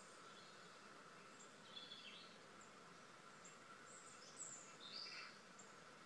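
Faint bird chirps from a bird video played through a laptop's small speakers: a short burst of calls about two seconds in, then a few more between four and five seconds in.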